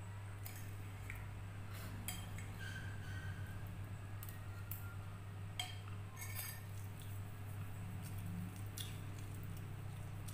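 Eating sounds: a metal spoon clinking and scraping on a plate of fried instant noodles and rice, with a few brief slurps as noodles are sucked up, over a steady low hum.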